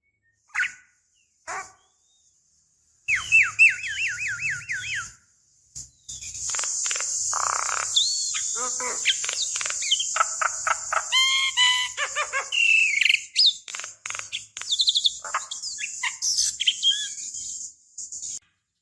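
Javan myna (jalak kebo) singing: two short calls, a pause, then from about three seconds in a run of quick repeated whistled notes followed by a long, dense string of whistles, chatters and harsh grating notes.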